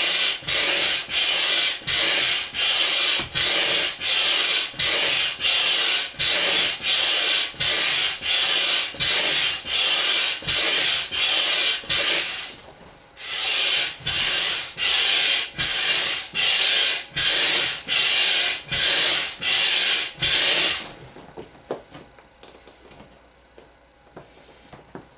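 Hand air pump forcing air into a large vinyl inflatable in quick, even strokes, a rush of hiss with each one, about one and a half to two a second. There is a brief pause about twelve seconds in. The pumping stops about twenty-one seconds in, leaving faint rustles and clicks.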